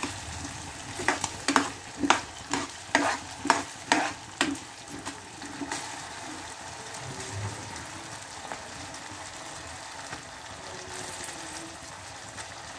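Potatoes and peas frying in oil and masala paste in a kadhai, sizzling steadily. For the first few seconds a steel ladle stirs them, scraping and knocking against the pan about twice a second, then it stops.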